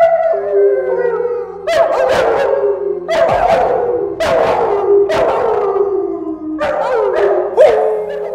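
A person and a dog howling together: long, wavering howls that slide downward in pitch, overlapping, with a fresh howl starting every second or so.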